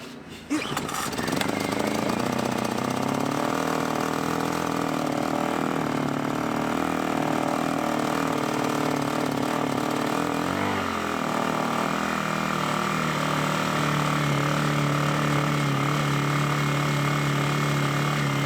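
Lifan ESI860i-CA 40cc inverter generator engine catching after a recoil pull, then running steadily on half choke in a cold start. About ten seconds in, its engine speed wavers and drops, then holds steady at the new speed.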